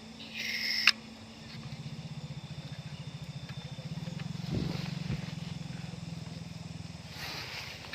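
A small engine running with a fast, even pulse, growing louder to a peak about halfway through and then slowly fading, as if passing by. A short hiss comes just before it and a couple of knocks near its loudest point.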